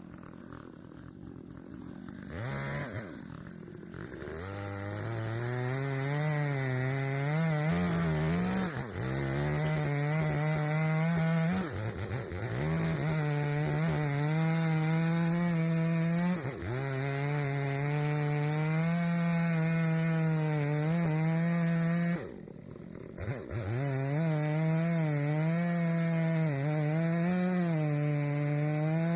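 Chainsaw ripping cedar lengthwise for slabs: the engine runs under load, its pitch sagging and recovering again and again as it cuts. It builds up over the first few seconds, drops off briefly about two-thirds of the way through, then picks up and carries on cutting.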